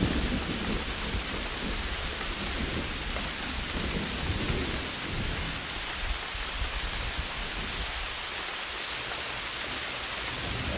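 Steady rain falling, an even hiss with no distinct drops or pitched sounds.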